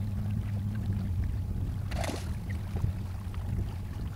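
Steady low drone of a distant motorboat engine on the lake, with a short rushing noise about two seconds in.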